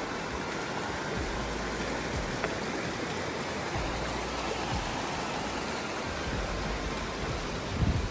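Mountain creek rushing over rocks in white water, a steady rush of water. A brief low thump comes near the end.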